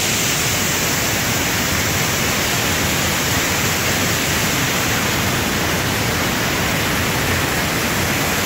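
A torrent of water pouring out of a sluice opening in a stone headwall and crashing into an irrigation canal: a loud, steady rush.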